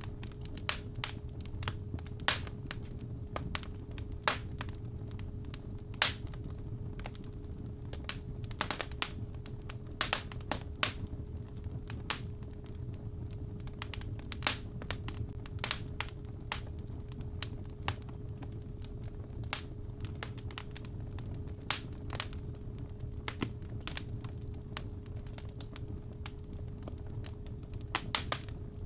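Fireplace wood fire crackling, with irregular sharp pops over a low rumble, under a steady 417 Hz tone.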